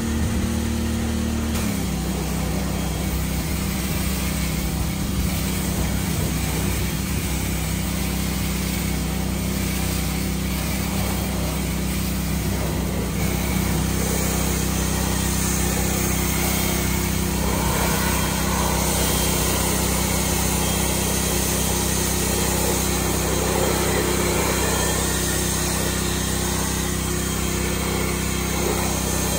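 Pressure washer running steadily with a low hum, its pitch dropping slightly about a second and a half in. A hiss of spraying water grows from about halfway through.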